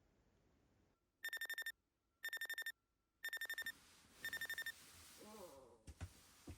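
An electronic alarm beeping: four quick bursts of rapid high-pitched beeps, about one burst a second, then it stops. Afterwards comes some rustling and a couple of soft thumps.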